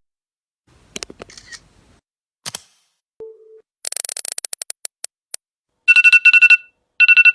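A string of iPhone sounds one after another: a few clicks, a short low beep, a fast run of ticks, then a rapidly pulsing electronic ring tone that starts about six seconds in.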